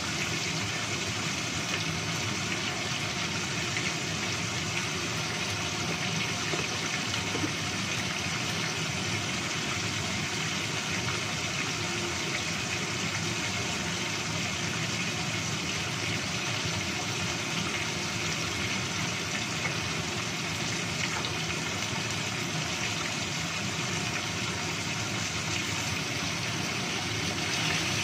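Whole tilapia shallow-frying in hot oil in a nonstick pan: a steady sizzle with fine crackling, a little louder near the end as a wooden spatula moves the fish.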